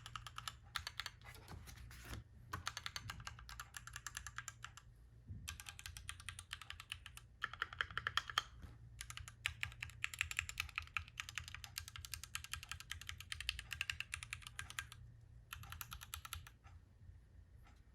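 Typing on a Keychron Q1 Knob mechanical keyboard: fast runs of key clicks in several bursts with short pauses between them, stopping about a second before the end.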